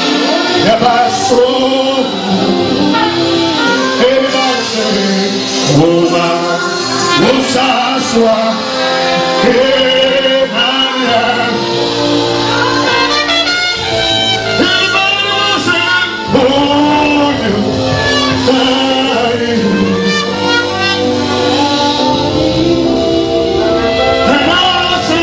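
Live gospel worship music: a man singing lead into a handheld microphone, with a woman's backing vocal and a church band of congas and drum kit accompanying.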